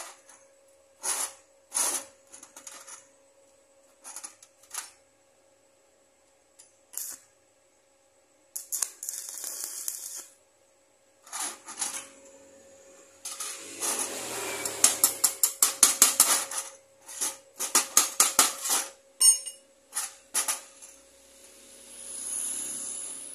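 Small metal parts clinking and tapping in irregular bursts, with a quick run of sharp taps in the middle.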